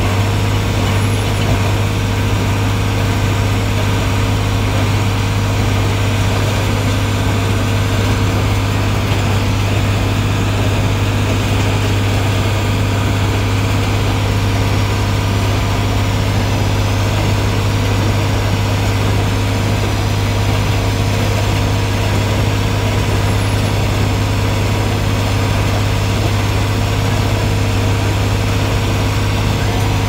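Tractor engine running steadily under load while pulling a John Deere 327 small square baler, heard from inside the cab as a constant deep hum.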